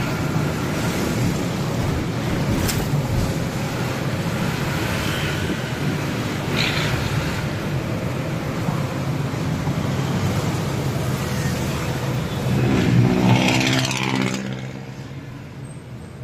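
Truck engine and road noise heard inside the cab while driving, a steady low rumble. Toward the end the engine gets louder and rises in pitch for a couple of seconds, then drops away quieter.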